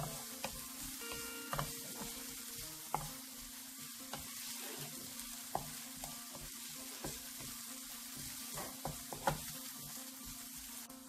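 Sliced red onion sizzling in hot oil in a nonstick frying pan, stirred with a wooden spatula that knocks and scrapes against the pan about once a second. The onions are being fried soft over a medium flame.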